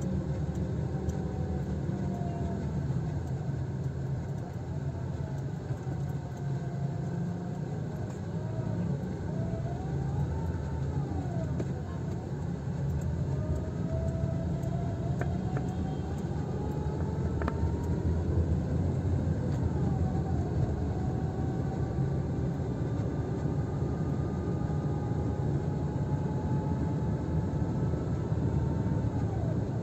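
Car driving on a wet road, heard from inside the cabin: a steady low rumble of engine and tyres with road hiss. A faint wavering tone drifts up and down above it.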